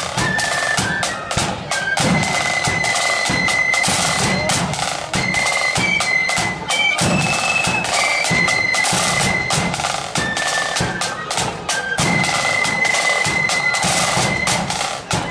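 Marching flute band playing: a high flute melody over rapid snare drumming and a bass drum.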